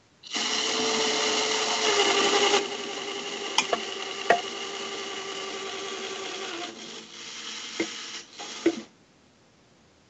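Claw-game machine's electric motors running, heard over a video call: a steady motor whine, loudest for the first two and a half seconds and then lower, with a few sharp clicks, stopping about nine seconds in.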